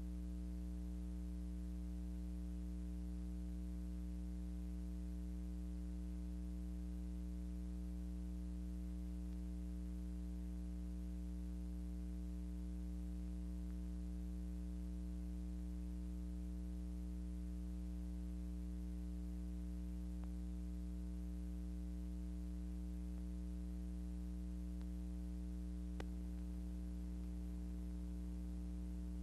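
Steady electrical mains hum with several overtones over a faint hiss, with a single faint click near the end.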